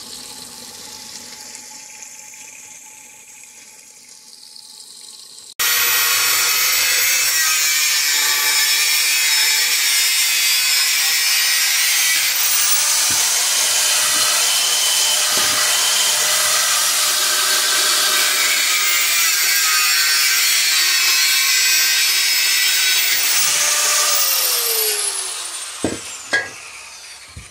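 Water pouring out of an old steel propane cylinder onto a drain grate. Then an angle grinder with a cutting disc cuts loudly and steadily through the cylinder's steel for about twenty seconds, winds down near the end, and is followed by a couple of sharp knocks.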